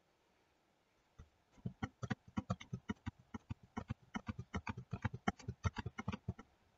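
Fast, uneven run of computer mouse and keyboard clicks, starting about a second and a half in.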